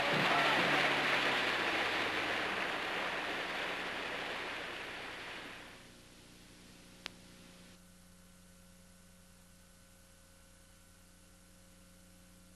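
A rushing noise fades out over about six seconds, leaving only faint steady hum and hiss, with one sharp click about seven seconds in.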